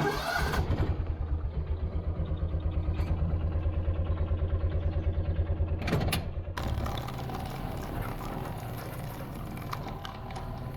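Small engine running with a fast, even pulsing beat after a sharp noisy start. About six and a half seconds in it changes to a steadier, more even running sound.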